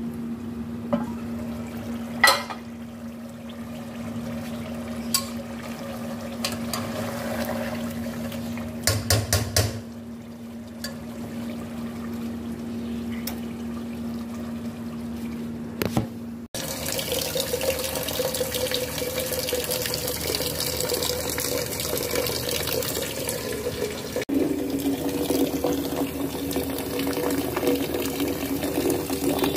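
Tap water running steadily into a steel cooking pot, a rushing splash that fills the second half. Before it, a steady low hum with a few sharp metal clinks and a short rattle.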